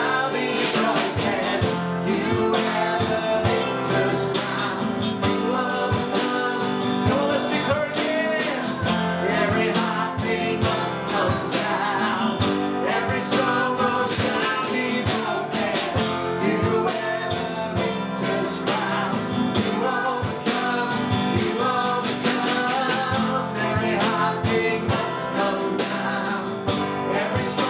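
Worship song: singing over guitar accompaniment with a steady beat.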